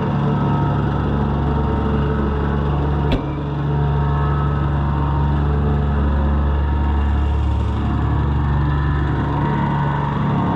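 An engine running steadily at an even speed, with a single sharp click a little over three seconds in.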